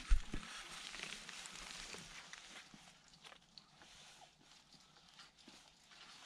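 Footsteps of hikers on a mountain trail: scattered light scuffs and clicks, with one sharp thump just after the start.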